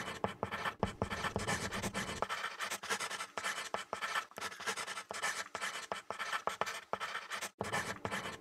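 White chalk scratching and tapping on a small chalkboard as it draws in quick strokes, with a short pause about seven and a half seconds in.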